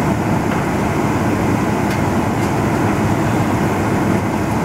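Steady, even low rumble and hiss inside a parked Boeing 777-300ER cabin, with the air conditioning running.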